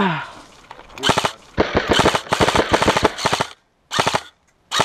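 Airsoft rifle firing on full auto: a long rapid burst of shots, then two short bursts near the end. It opens with a brief sound sliding down in pitch.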